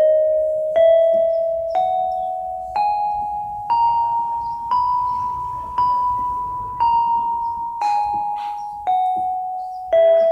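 Yamaha PSR-32 portable keyboard playing a scale one note at a time, about one note a second. It climbs in steps for about six notes, then steps back down, each note struck and fading before the next.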